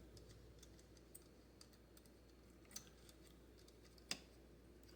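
Near silence with a few faint, light clicks of small metal hardware being handled: heatsink mounting screws and parts tapping together. The clearest clicks come near the middle and about four seconds in.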